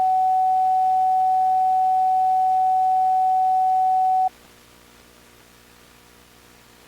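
A single-pitch electronic sine-wave alert tone held steady for about four seconds, then cut off abruptly, leaving faint hiss.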